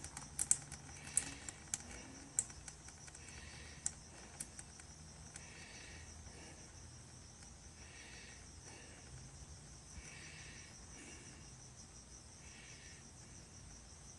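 Faint insect chirping, most likely a cricket, in short trills about once a second. A few soft ticks come in the first four seconds.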